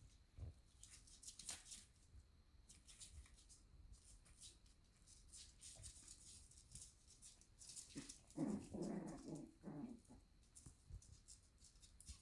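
Shiba Inu puppies play-fighting: faint scuffling and clicking of paws on the floor and puppy pads, with one short puppy vocal sound about eight seconds in.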